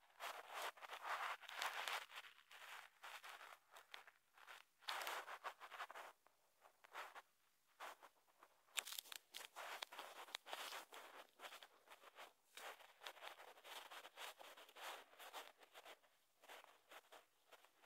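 Faint, irregular rustling and scuffing noises that come and go in short bursts, typical of a phone being handled while it records.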